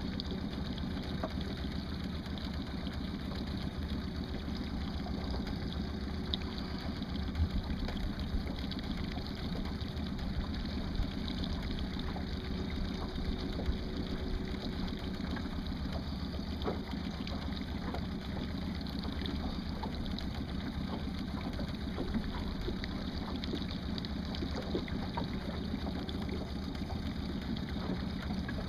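Boat motor running steadily at slow trolling speed, an even drone with a few faint ticks scattered through it.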